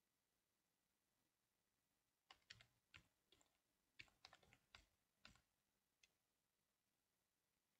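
Faint computer keyboard typing: a quick run of a dozen or so keystrokes starting a little over two seconds in, then a single last keystroke about six seconds in.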